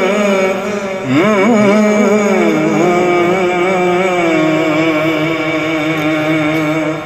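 A man singing a devotional naat in long, drawn-out melodic phrases: quick ornamented turns about a second in, then one long held note with a slight waver.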